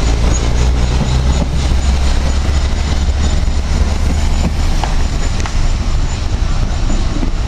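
Steam locomotive moving away along the track, heard as a steady, heavy low rumble with a few faint clicks.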